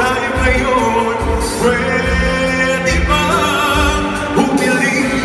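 Amplified pop ballad backing track with a steady low bass beat, and a male singer holding wavering, vibrato notes over it without clear words.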